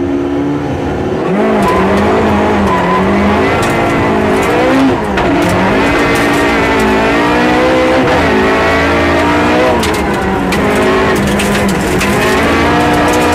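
Rally car engine heard from inside the cabin at full stage pace, its pitch climbing and dropping repeatedly through the gears, with scattered sharp clicks of gravel striking the car.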